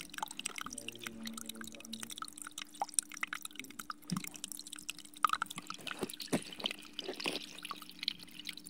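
Water bubbling and dripping out of a leaking buried water pipe into the flooded hole around it, a run of small irregular splashes and plops. The leak comes from a cracked pipe.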